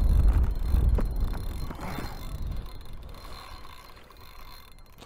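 Strong wind gusting across the microphone, a deep rumble that is loudest at first and dies away over about three seconds as the gust eases.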